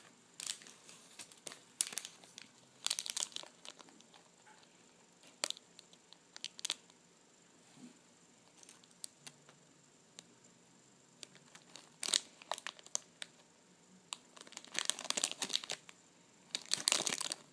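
Plastic packaging of squishy toys crinkling as it is handled, in scattered crackly bursts with a denser stretch near the end.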